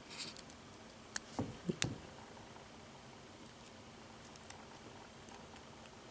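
Lock pick and tension tool working in an American Series double-sided wafer lock during single-pin picking: a cluster of faint metallic clicks and scrapes about a second in, then a couple of light ticks.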